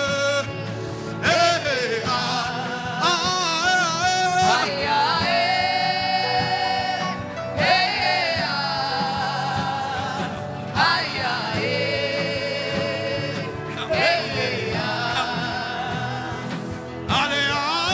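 Gospel worship music: a voice sings long, wavering held notes without words, in phrases of two to three seconds, over a steady low accompaniment.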